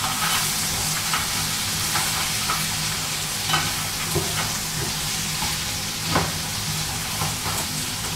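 Frozen stir-fry vegetables and nuts sizzling in oil in a frying pan while being stirred with a spatula. A steady hiss runs throughout, with short scrapes and clicks of the spatula against the pan every second or so as the vegetables thaw and start to cook.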